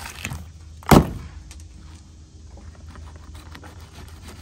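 A single loud thump about a second in, followed by light taps and handling noise from a knife working on fish fillets laid on cardboard.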